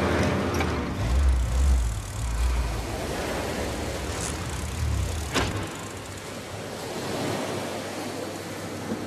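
An open jeep's engine rumbling as it drives over rough rocky ground, over the steady wash of waves on the shore. The engine rumble stops about five and a half seconds in, close to a single sharp click.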